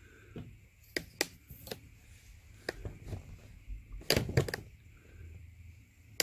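Scattered light clicks and taps, some single and a quick cluster of several near the middle, over a faint steady hiss: handling noise from close-up work on a cut-open oil filter.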